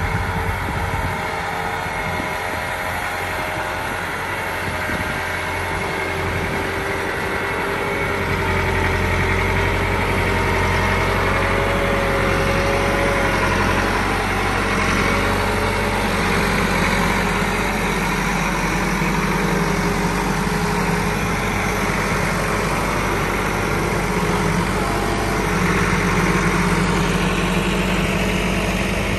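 Massey Ferguson 385 tractor's four-cylinder diesel engine running steadily as it pulls a trolley loaded with soil, getting louder about eight seconds in.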